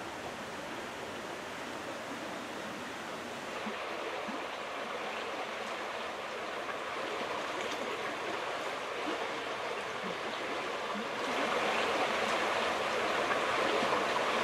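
Stream water flowing over a gravel bottom and riffles, a steady rushing that gets louder about eleven seconds in.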